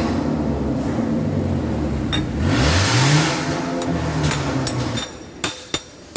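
A motor vehicle engine running and revving, its pitch rising and falling, until it stops about five seconds in. Then come about three sharp metal-on-metal hammer strikes with a ringing tone, knocking out a wheel stud from the hub.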